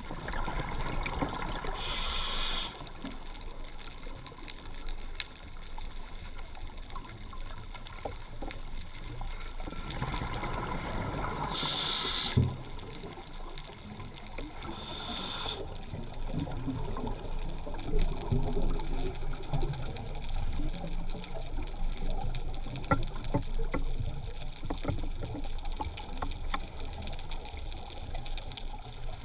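Muffled underwater water noise with a low rumble, broken by three short hissing bursts of bubbles: about two seconds in, a longer one around ten to twelve seconds, and a brief one near fifteen seconds.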